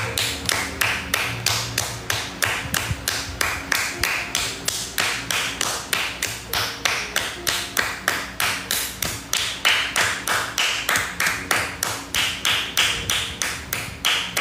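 Hands clapping in a steady, unbroken rhythm, about three claps a second: a long round of applause.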